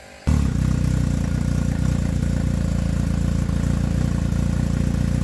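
A motor starts abruptly and runs with a steady, low pulsing hum.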